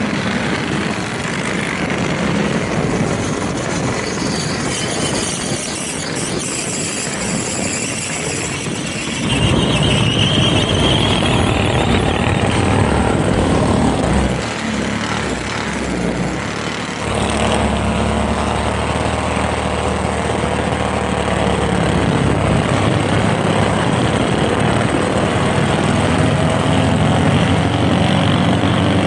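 Small minibike engines running loudly. The sound grows louder about a third of the way in and settles into a steadier running note after the middle.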